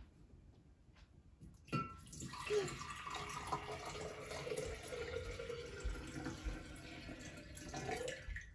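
Water poured from a glass jug into a tall glass container: a steady splashing pour that starts about two seconds in and stops near the end.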